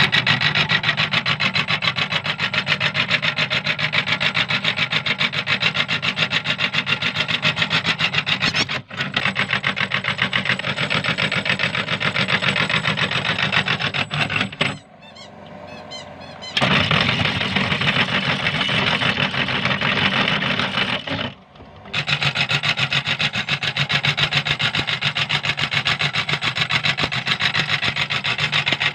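Meat grinder running and grinding up plastic toys, a fast rasping churn over a steady motor hum. It cuts out for about two seconds a little past halfway, and briefly again a few seconds later.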